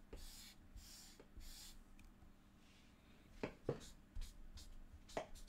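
Felt-tip marker scratching across paper in three short strokes, followed by a few sharp clicks.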